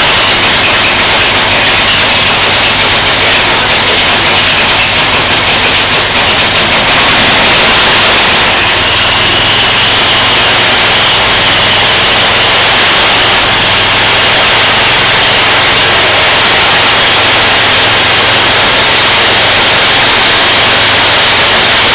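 Snowblower engine running loud and steady, with a low hum that grows a little stronger about eight seconds in.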